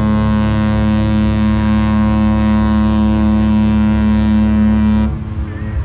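Cruise ship's horn sounding one long, steady blast that cuts off about five seconds in.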